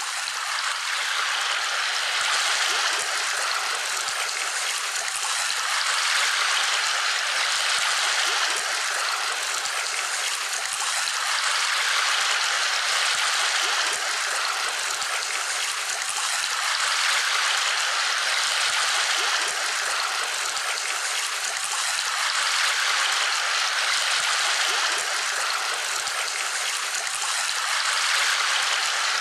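Steady rushing noise like running water, swelling and easing every few seconds.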